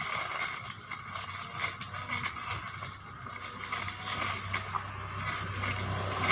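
Electric grass cutter running steadily, with a scratchy, uneven cutting noise over the motor's whine.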